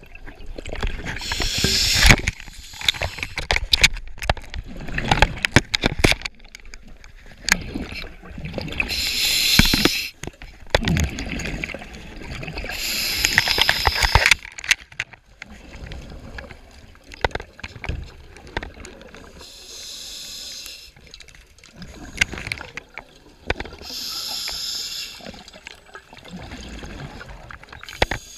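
Scuba diver breathing through a regulator underwater: exhaled bubbles gurgle out in bursts about every four to six seconds. Scattered clicks and knocks between the breaths.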